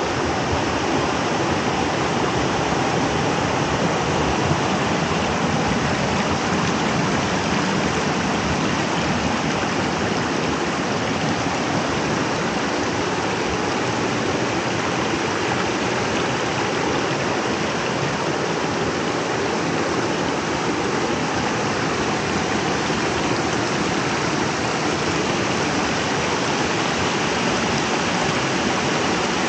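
Creek water rushing steadily over small rocky cascades and across a flooded rock walkway.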